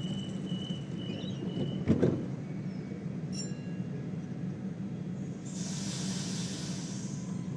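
Sydney electric train at a station platform: a steady low rumble, with a single thump about two seconds in and a hiss from about five and a half seconds in, lasting about two seconds.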